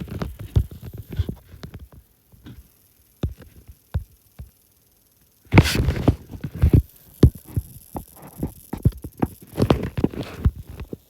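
Irregular low thumps and clicks of handling noise on the microphone. They stop into near silence for a few seconds, then a louder rustling burst comes about halfway through, followed by more thumps.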